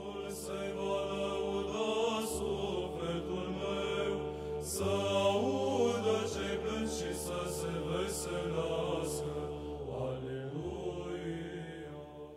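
Soft background music: a slow vocal chant whose wavering sung lines sit over a steady held drone.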